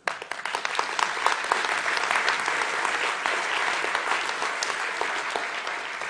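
Audience applauding: many hands clapping together, starting all at once and thinning out near the end.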